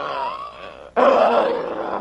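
A person's voice making a guttural demon groan and growl. A louder growl starts suddenly about a second in and trails off.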